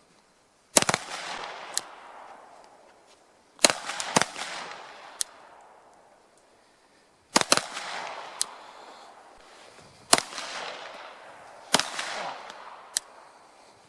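Pistol shots fired singly at a slow pace, about six over the stretch, two of them in quick succession. Each crack is followed by a long echo that dies away, with fainter sharp cracks in between.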